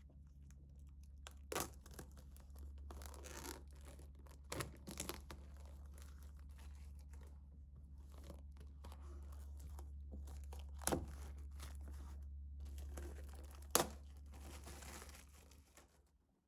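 Packaging being handled close up: paper rustling, crinkling and tearing, with a few sharp clicks and taps along the way, over a low steady hum.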